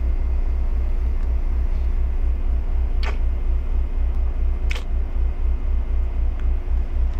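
Steady low machine hum that throbs a few times a second, with two short clicks about three and four-and-a-half seconds in.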